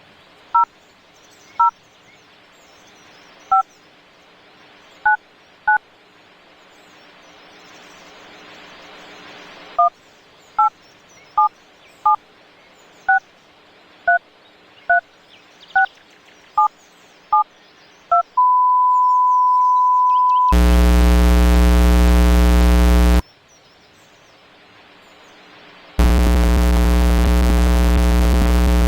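A string of telephone keypad (DTMF) touch-tone beeps, about sixteen short two-note beeps at irregular spacing over a hiss and low hum. About two-thirds of the way in comes a steady single-pitch beep lasting about two seconds, then a loud harsh buzz for about three seconds, a short pause, and the buzz again near the end.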